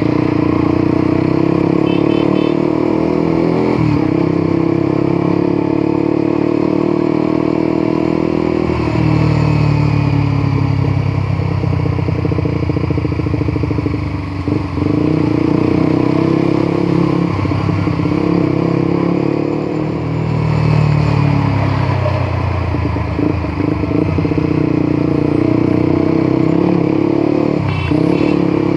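Motorcycle engine running under way, its note holding or climbing and then dropping briefly several times as the rider changes gear.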